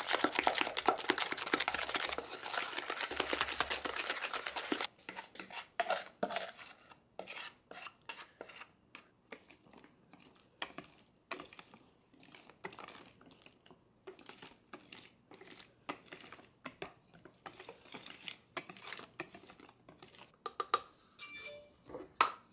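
Hand wire whisk beating egg yolks and sugar fast against a stainless steel bowl: a dense, rapid clatter that stops about five seconds in. After that come slower, separate whisk strokes in a glass bowl as the yolks are mixed into the meringue, and a couple of ringing metal clinks near the end.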